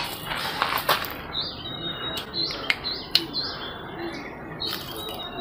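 Small birds chirping repeatedly in short high calls. Over them come a few sharp crunches as crisp deep-fried quail is bitten and chewed.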